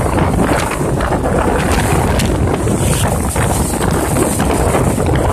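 Steady rush of wind over the microphone of a moving motor scooter, mixed with the scooter's engine and road noise.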